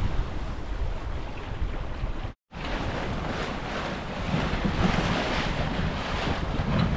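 Wind buffeting the microphone over the wash of waves along the hull of a sailboat under sail. A brief dropout comes about two seconds in, and after it the wind noise is louder and gustier.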